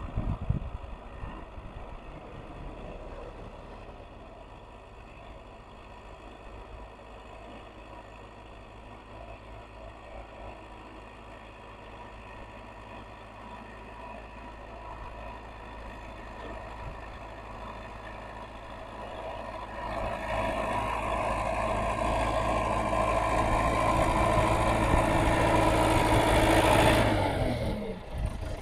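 Heavy construction-machine diesel engine running at a steady low idle, with a few short knocks in the first second. From about twenty seconds in it grows steadily louder as it revs up under work, then drops off sharply just before the end.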